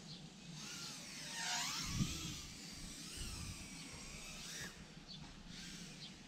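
Small FPV quadcopter's motors and propellers whining as it flies past, the pitch sweeping down and back up several times. It is loudest about one and a half to two seconds in, with a low thud at the peak.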